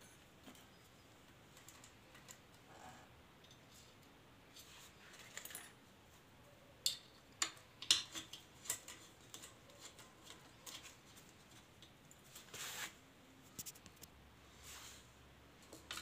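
Scattered light metallic clicks and clinks of small engine parts and hand tools being handled during a timing chain job, with a run of sharper clicks about halfway through.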